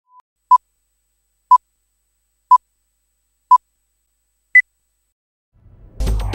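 Countdown leader beeps: four short beeps at one pitch, a second apart, then a single higher beep about an octave up. Intro music comes in loudly near the end.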